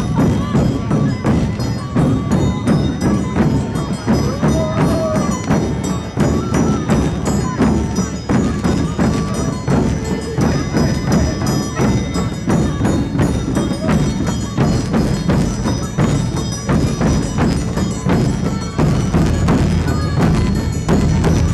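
Dense, continuous clanging of many cowbells worn on the backs of sheepskin-clad Sardinian carnival masks, shaken as they move, mixed with music.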